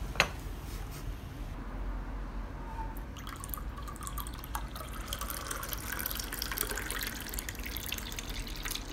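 A sharp click just after the start, then water poured from a bottle into a glass of mint syrup: a steady splashing, trickling pour from about three seconds in.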